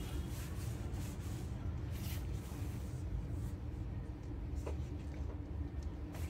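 Rustling of cloth as a chadar is lifted, spread and draped by hand, with a few soft scratchy brushes, over a steady low hum.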